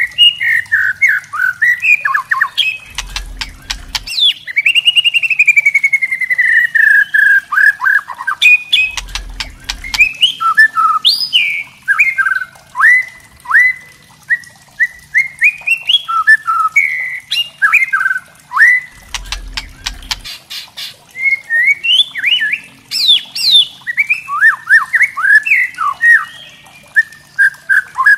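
White-rumped shama (murai batu) singing: a continuous run of varied whistled phrases and quick chattering notes, mixed with sharp clicking notes, with one long falling whistle about four seconds in.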